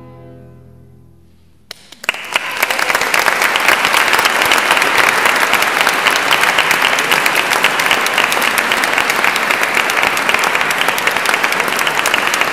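A string ensemble's final held chord fading away, then an audience starting to applaud about two seconds in, the clapping going on steadily.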